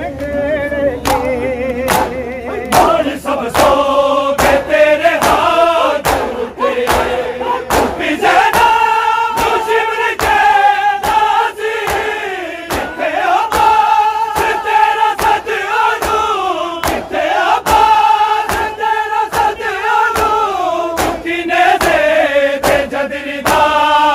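Men chanting a Punjabi noha, a Shia lament, in long held notes, over the crowd's matam: hands slapping bare chests in a steady rhythm of sharp strikes.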